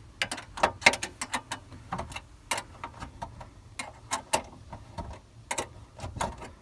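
Ratchet wrench with a 7 mm socket clicking in irregular runs as its pawl ratchets on the back-swing, driving in dash panel screws.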